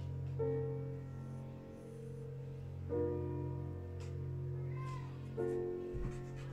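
Background music: sustained, piano-like chords, a new one coming in about every two and a half seconds over a steady low hum.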